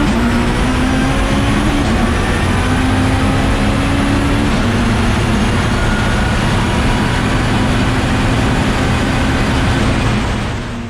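Time-attack Mitsubishi Lancer Evolution race car on track under hard acceleration. Its engine note climbs slowly and drops back at two gear shifts, about two seconds and four and a half seconds in, under a loud steady rush of noise. It fades out near the end.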